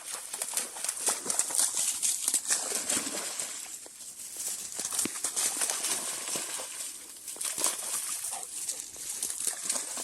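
Maremma sheepdog splashing as it runs and plays through a stream: a dense run of irregular splashes that eases briefly about four seconds in.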